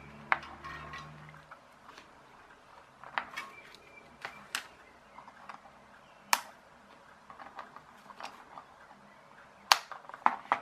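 Sharp, separate small clicks and taps of a small circuit board and component leads being handled and bent, then near the end flush side cutters snipping component lead wires, the loudest clicks.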